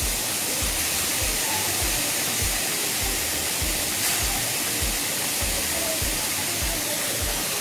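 Steady hiss with background music under it, a low beat at about two thumps a second.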